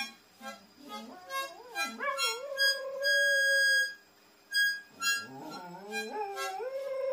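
Border collie howling along to music: two long howls that rise in pitch and then hold steady, the first in the first half and the second starting about five seconds in, over short repeated musical notes and one long held note in the middle.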